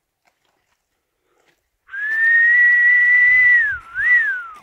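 A person whistling: one long, nearly level note starting about two seconds in, then a quick dip and rise in pitch before it slides down at the end.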